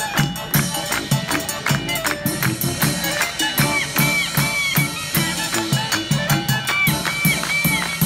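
Japanese chindon street band playing: a chindon drum rig of gong, small drum and bass drum keeps a steady, busy beat under a tuba bass line, while a clarinet carries the melody, with scooped, sliding notes in the middle.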